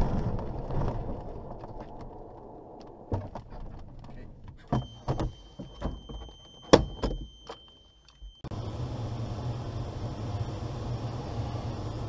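A glider's landing wheel rumbling over grass as it rolls out, the rumble dying away over the first few seconds as it slows to a stop. Scattered knocks and clicks follow, with a steady high electronic tone from about five to eight seconds in. Then the sound switches abruptly to the steady rush of air over a glider's cockpit in flight.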